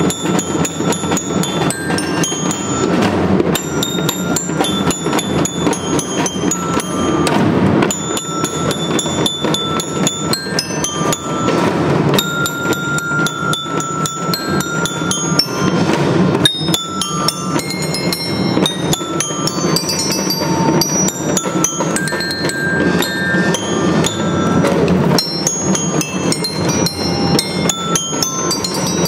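Children's drum band playing a tune: drums beating steadily, with the melody in short, ringing notes on bell lyres (marching glockenspiels).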